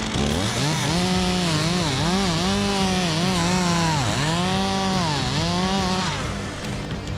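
Two-stroke chainsaw cutting wood, its engine pitch dipping and recovering several times as the chain bites into the cut. It ends about six seconds in.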